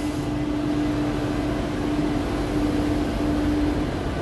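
CNC router running while it cuts sheet material: a steady mechanical hum and hiss with a held tone.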